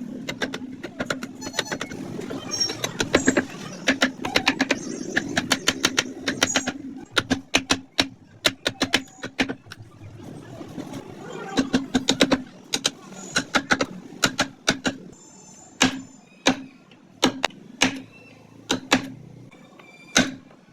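Hand wood carving: a mallet tapping a carving chisel into wood in quick runs of sharp taps, several a second, thinning to separate strikes in the second half.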